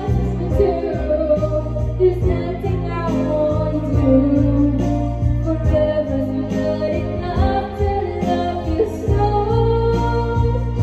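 Woman singing karaoke into a microphone over a backing track with a steady bass line.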